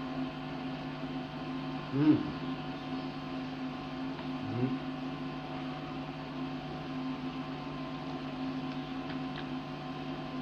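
Steady electrical mains hum with several fixed pitches on the soundtrack of a 1983 videotaped teaching, in a pause without talk. A short low vocal murmur comes about two seconds in, and a fainter one about four and a half seconds in.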